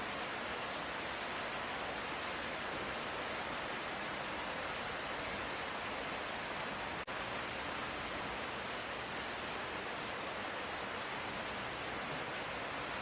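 Steady light rain falling, an even hiss with no thunder, broken by a split-second dropout about seven seconds in.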